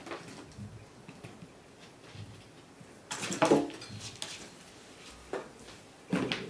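Burmese kittens scrambling over and around a hard-shell backpack, claws scratching and straps and buckles clattering against the plastic shell and the floor. The sound comes in scattered clicks and scrapes, loudest about three seconds in and again briefly near the end.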